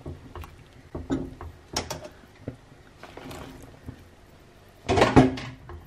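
Scattered light clicks and knocks of a silicone spatula and vegetable pieces against a nonstick frying pan of simmering soup, with a louder brief sound about five seconds in.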